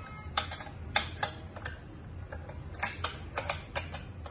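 Irregular sharp clicks and taps of a metal exercise-bike pedal being handled and threaded by hand onto the crank arm, in small clusters, over a low steady hum.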